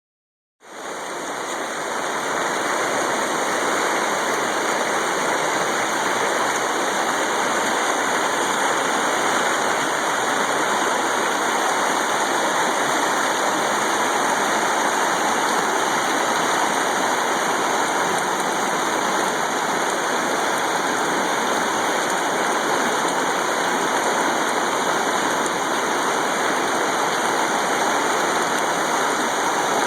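Swollen floodwater rushing, a steady unbroken noise that starts about half a second in.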